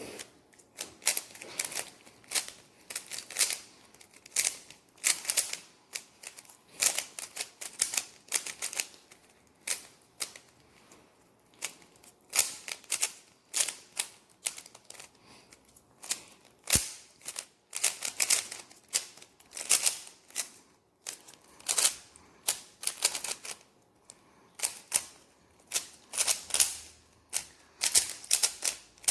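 Plastic Rubik's cube being speed-solved by hand: its layers are turned in fast runs of clicking and clacking, bursts of a second or so broken by short pauses.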